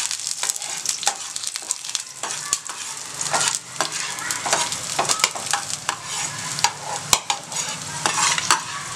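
Garlic cloves sizzling in a spoonful of oil in a kadai, stirred with a spatula that scrapes and clicks against the pan in quick, irregular strokes over the steady sizzle.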